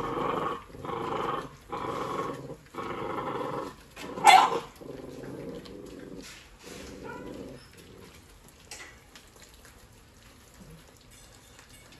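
Puppies growling in repeated bursts as they fight over a piece of meat, with one sharp, loud yelp just over four seconds in. The growling then grows weaker and fades out.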